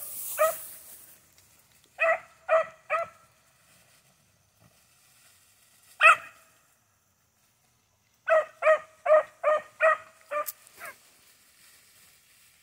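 Beagle puppy barking on a rabbit's scent trail: one bark, a quick run of three, a single bark, then a run of about seven barks in quick succession near the end.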